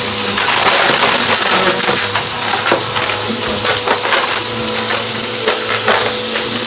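Vacuum cleaner running with a steady, loud hiss and hum while it sucks up crunchy debris, which gives many crackling clicks throughout.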